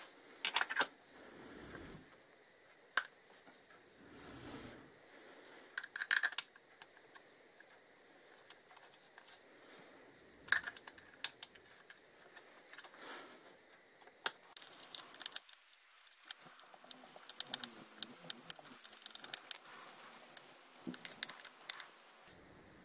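Small metal parts being handled and screws driven in with a hand screwdriver as a cover is fitted to a motorcycle engine's aluminium crankcase. A few scattered clinks and taps, then a quick run of light clicks and scrapes from the screwdriver on the screws in the second half.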